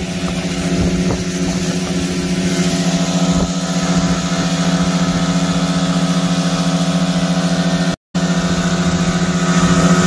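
A 15-horsepower outboard motor running steadily at speed, a constant engine drone with water rushing past the hull. The sound breaks off for an instant about eight seconds in.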